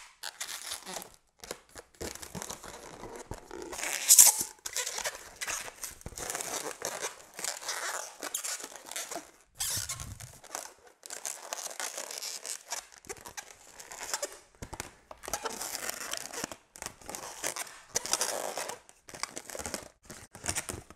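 Latex balloon being twisted and rubbed by hand into a bird shape: irregular rubbing and squeaking strokes, with one louder stroke about four seconds in.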